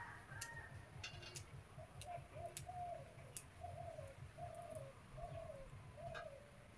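A bird calling: a run of about seven short, evenly spaced calls on much the same pitch, starting about two seconds in, with a few sharp clicks scattered through.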